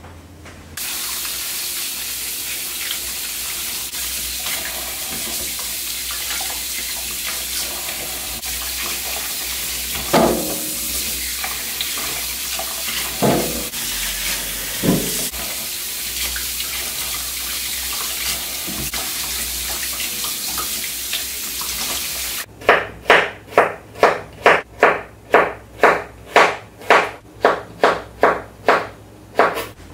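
Water running steadily from a kitchen tap into a sink, with a few brief knocks during it. The water stops, and about fifteen even strokes follow, roughly two a second.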